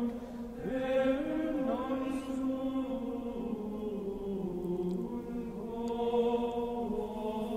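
Sung chant: voices singing a slow melody in long held notes, gliding from one pitch to the next.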